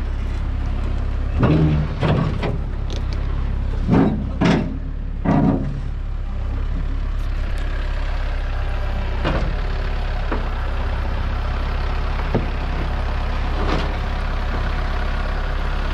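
Compact Kubota tractor's diesel engine running steadily as it pushes a heavy compressor trailer up onto a flatbed deck, with several louder surges in the first few seconds and a few short clanks later on.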